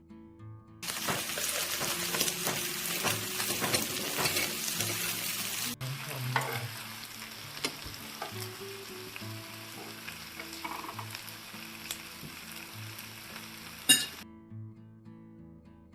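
Food sizzling with scattered small pops, loud for the first few seconds, then quieter after an abrupt cut. A sharp click comes shortly before the sizzle stops. Soft acoustic guitar music plays underneath.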